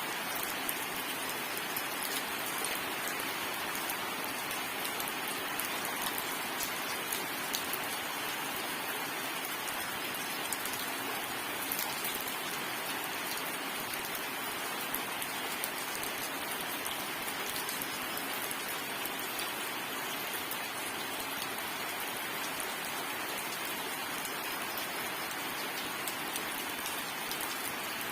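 Steady rain falling, an even hiss with many small drop ticks and no thunder.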